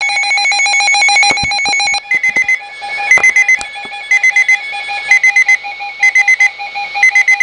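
Weather alert radio sounding its alarm for a severe thunderstorm warning: a loud, fast-pulsing electronic warble for about two seconds, then groups of four quick high beeps repeating about once a second over a steady lower tone.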